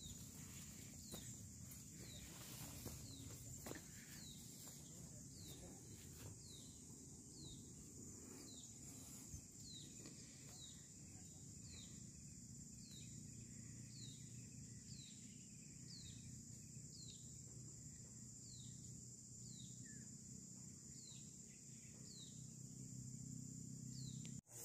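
Quiet forest ambience: a steady high-pitched insect drone and a short falling chirp repeated about once a second, over a faint low rumble.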